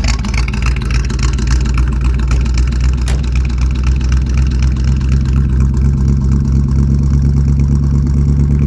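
1971 Chevy C10 pickup engine running steadily just after a cold start, through a Cherry Bomb glasspack muffler, sounding like a tractor. A single sharp click about three seconds in.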